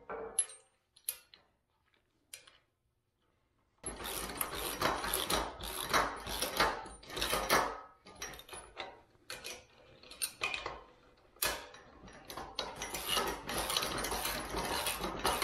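Metal clattering and rattling of a steel strut-channel rail and its hardware as it is handled and worked by hand. A few faint knocks come at the very start, then a few seconds of near silence, then dense, irregular clatter for the rest.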